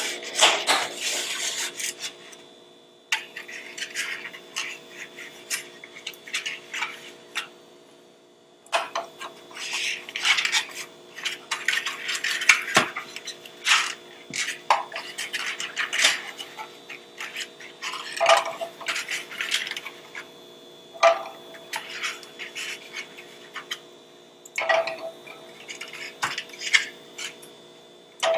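Eggs set one by one into a glass saucepan of water, knocking and clinking against the glass and against each other at irregular moments. Between the clinks comes the rustle of a pulp egg carton being handled, over a faint steady hum.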